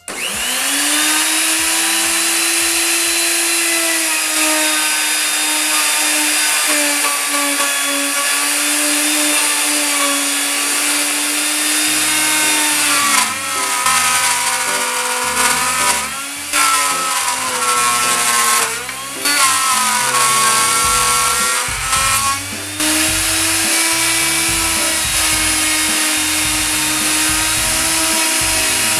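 Wood router in a router table switching on with a sudden start and running at a steady high whine. Through the middle it cuts a board fed along the fence: the whine wavers and sags under the load, with brief drops in loudness.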